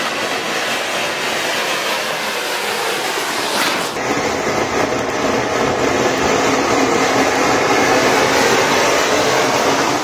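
Anaar fountain firework burning with a loud, steady hiss as it drives a toy train along its track; the sound changes abruptly about four seconds in.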